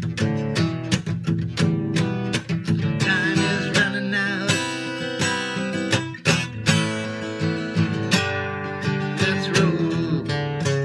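Acoustic guitar strummed chords in a steady rhythm.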